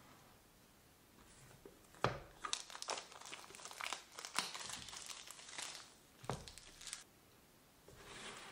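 Clear plastic shrink-wrap being torn and peeled off a cardboard smartphone box, crinkling in a run of sharp crackles from about two seconds in to about seven seconds in, with a last short rustle near the end.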